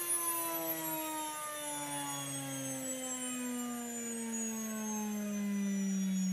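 NutriMill Classic electric grain mill whining, its pitch falling slowly and steadily as the motor winds down with the hopper emptied of grain.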